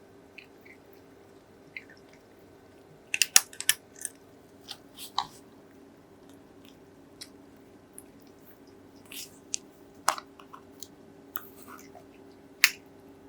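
A cat crunching dry kibble: irregular crunches, with a quick cluster of loud bites about three seconds in and more scattered ones later, over a faint steady hum.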